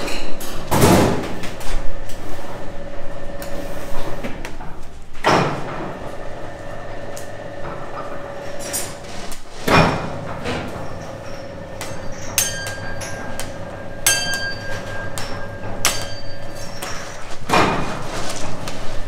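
Hand work on a batch of hard candy: four loud sliding, scraping strokes a few seconds apart, with a few small clicks between the last two and a steady hum underneath.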